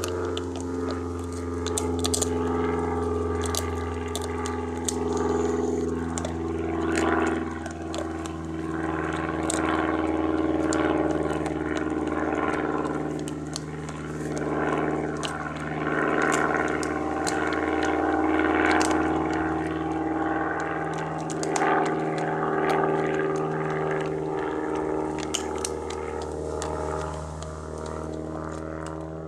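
Didgeridoo music: a steady low drone whose overtones keep shifting, with sharp clicks scattered through it.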